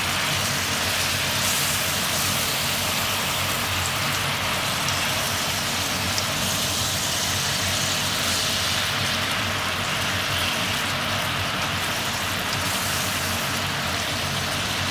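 Stir-fry sizzling steadily in a nonstick wok as chicken, shrimp and greens are turned with a spatula, over a steady low hum.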